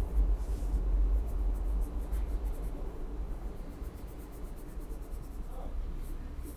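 Colored pencil shading on sketchbook paper: a quick run of short back-and-forth scratching strokes a couple of seconds in, then scattered single strokes. A low rumble sits underneath, strongest in the first couple of seconds.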